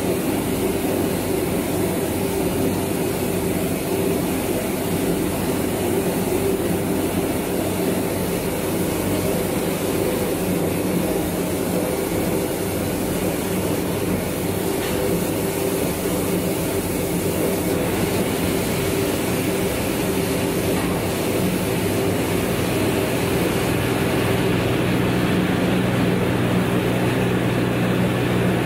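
Compact combined rice milling machine running, milling rice: a steady machine hum and rumble. The low hum grows stronger a few seconds before the end.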